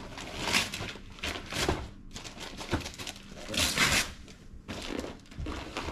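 Wrapping paper rustling and crinkling in several short bursts, the loudest a little past halfway, as presents are unwrapped.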